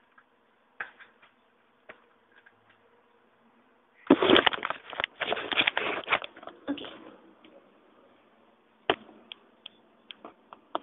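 Close handling noise: a burst of rustling and crackling starting about four seconds in and lasting some three seconds, with scattered clicks and knocks before and after.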